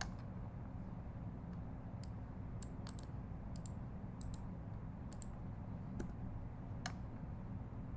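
Scattered, irregular clicks of a computer keyboard and mouse, about ten in all, over a steady low background hum.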